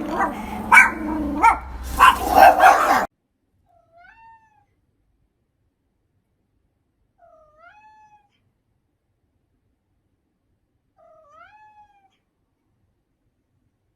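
A dog barking for about three seconds, then a sudden cut to quiet, and a cat meowing faintly three times, a few seconds apart.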